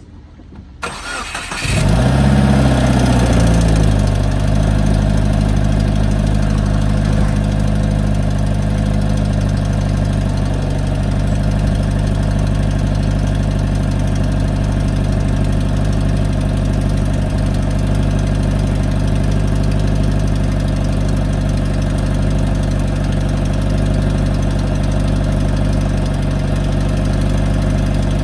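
Subaru WRX turbocharged 2.0-litre flat-four, exhaust with muffler and resonator deleted, cranked over and starting about two seconds in. It flares up in revs and then settles into a steady idle.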